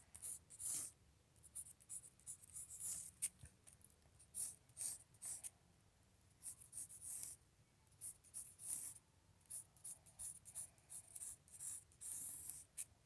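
Pencil scratching on paper in a run of short, quick strokes, drawing hair lines, with brief gaps between strokes.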